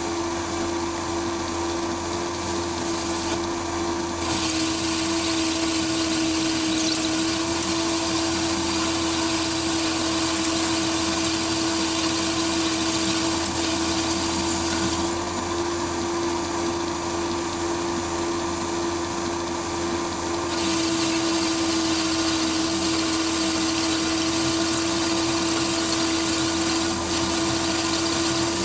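Small metalworking lathe running with a steady motor hum and high whine while a turning tool takes a light facing cut across the shoulder of a spinning metal backplate.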